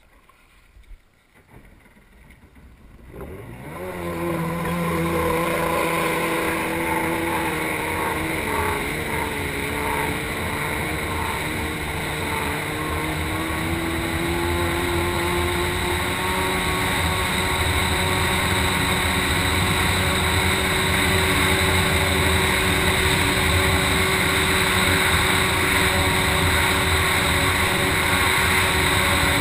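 Stand-up jet ski's engine opening up about three seconds in. Its pitch climbs, wavers a little, then holds at a steady high-speed run over a rushing hiss.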